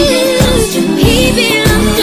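Music: an R&B/pop edit audio with deep bass-drum hits that fall in pitch under a gliding melody, with no lyrics in this stretch.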